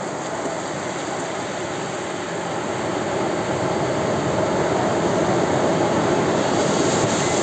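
Surf: waves breaking and washing up the sand in a steady rush that swells somewhat in the middle.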